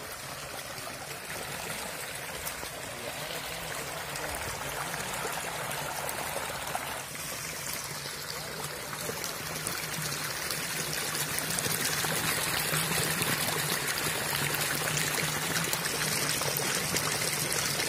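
Water running and splashing down a narrow mud channel over a plastic sheet and a bamboo screen into a clay-pot fish trap (paanai pari), getting steadily louder as the flow picks up.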